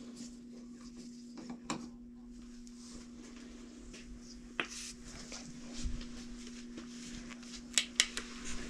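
Scattered light clicks and taps of hands working a plastic PVC drain cleanout cap off and setting it down, with a few sharper clicks near the end as a flashlight comes on. A steady low hum runs underneath.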